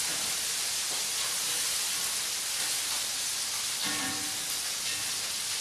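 Vegetables sizzling and steaming in a hot wok, a steady hiss, while they finish cooking in their own steam. Background music plays along with it.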